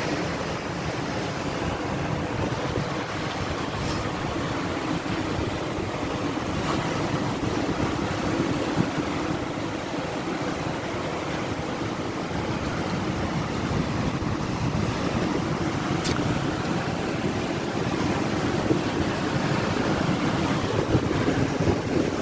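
Sea surf breaking and washing over a rocky shore in a steady rush, with wind buffeting the microphone in a low rumble.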